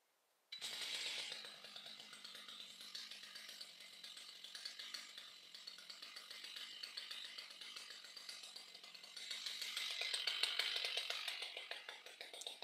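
Chainsaw starting up suddenly about half a second in and running with a fast, buzzy chatter, heard thin and distant. It grows louder from about ten seconds in, as if cutting.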